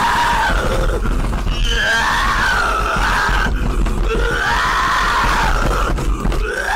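A man screaming loudly and distorted in several long cries that rise and fall in pitch, over a heavy low rumble.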